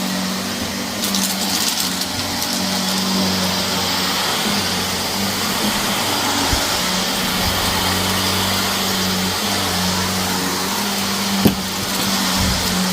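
Shark vacuum cleaner running steadily on a dirty carpet, its motor humming. There is a brief crackle of debris being sucked up about a second in and a single sharp click near the end.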